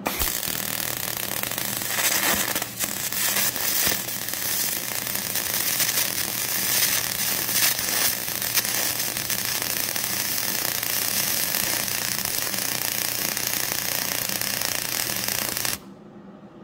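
Aluminum MIG welding with a Miller Spoolmate 100 spool gun on a Millermatic 140 and 4043 wire under pure argon, run in spray transfer: the arc gives a steady crackling hiss for about sixteen seconds, then cuts off suddenly near the end as the bead is finished.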